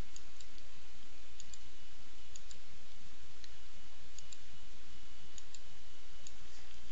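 Faint computer-mouse button clicks, mostly in quick pairs about a second apart, over a steady background hiss and low hum.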